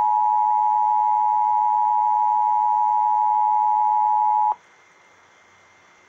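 Emergency Alert System attention signal: a steady two-note tone from a loudspeaker that cuts off sharply about four and a half seconds in, leaving faint hiss. It is the alert tone that heralds a National Weather Service severe thunderstorm warning.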